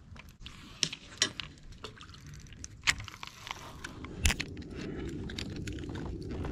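Small clicks and clatters of fishing gear being handled in a plastic kayak, with a louder knock about four seconds in, after which a steady low rushing noise sets in.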